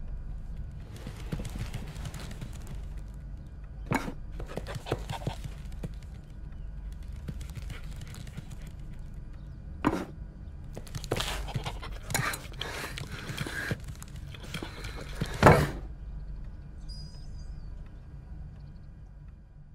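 Cartoon sound effects of scattered knocks, taps and scrapes on a hard floor, like a bowl being shoved about, over a low steady hum. Three sharp knocks stand out: one about 4 s in, one about 10 s in, and the loudest thump about 15 s in.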